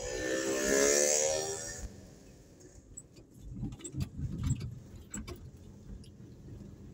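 A motor vehicle engine close by: a steady pitched hum with a hiss over it swells, peaks about a second in and fades away within two seconds. Scattered sharp clicks and rattles follow over a low rumble.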